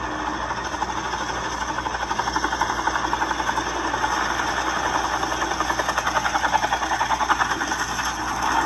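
Robinson helicopter's main rotor and piston engine on approach, a fast, even rotor beat that grows stronger about halfway through as the helicopter comes closer. It is settling toward the ground on a slow approach where the power required exceeds the power available.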